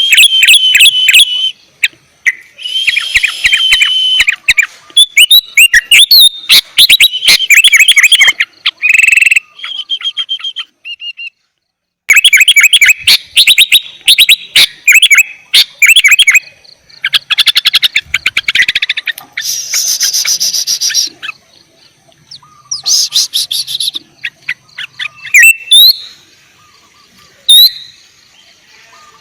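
Sooty-headed bulbul (kutilang) singing loudly in rapid bursts of chirps and quick whistled notes, with short pauses between bursts and a brief silent gap about eleven seconds in.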